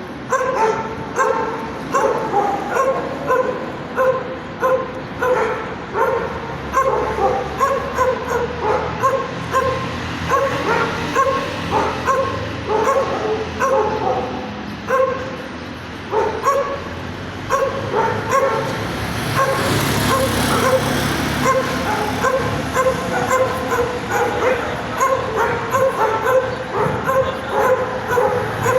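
A dog barking over and over in short, high yips, about two a second, with a whining edge, keeping up without a break.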